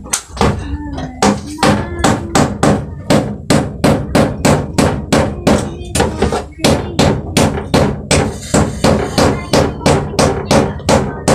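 Nails being driven into a plywood sheet with steady, hard blows, about three a second, with a short break about six seconds in; each blow rings briefly with a pitch.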